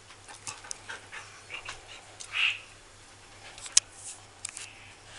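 Two dogs playing: light scuffling and scattered clicks, with a short breathy huff a couple of seconds in and a sharp click near the middle.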